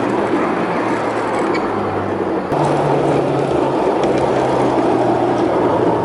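Steady running noise of a 5-inch gauge railbus on its track: a low motor hum over a rushing rumble. The sound shifts abruptly about two and a half seconds in.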